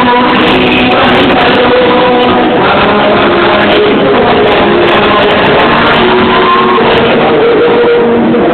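Live rock music with a singer and guitar, played loud over a sound system and heard from the audience in a large hall.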